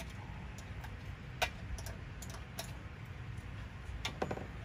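Scattered sharp metal clicks of a small wrench on the carburetor's mounting nuts as they are snugged down against the intake manifold, over a low steady hum.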